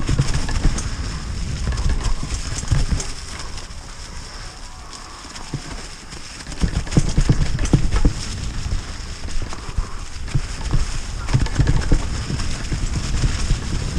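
Mountain bike riding fast down a leaf-covered dirt trail: the tyres roll over the fallen leaves, and the bike rattles and knocks irregularly over bumps, over a steady low rumble. The rattle eases for a few seconds in the middle and picks up again from about six and a half seconds in.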